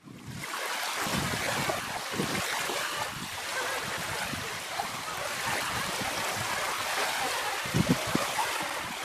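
Small lake waves lapping and washing onto a sandy shore, a steady wash of water. Wind buffets the microphone now and then with low rumbles, most strongly near the end.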